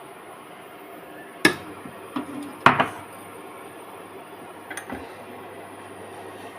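Kitchen clatter: a few sharp knocks of containers and utensils being handled and set down, the loudest about halfway through, over a steady background hiss.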